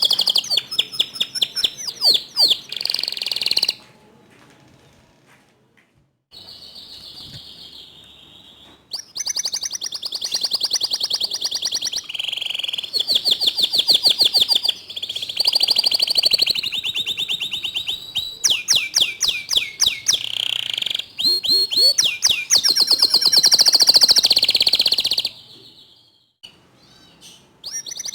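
Domestic canary singing a long, loud song of rapid trills and rolls. The song comes in phrases that break off briefly about four seconds in and again near the end.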